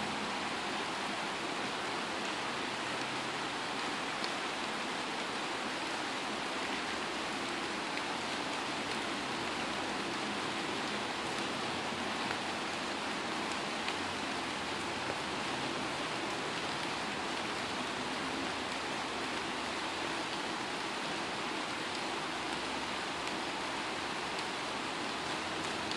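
Steady rain falling on tree foliage: an even hiss with a few slightly louder drops standing out now and then.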